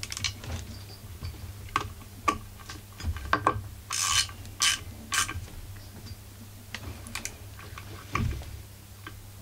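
Small bit ratchet clicking in short, irregular spells as the ignition coil's mounting screws on a Husqvarna 44 chainsaw are tightened, fixing the coil at its 0.3 mm air gap to the flywheel. The busiest run of clicks comes around the middle.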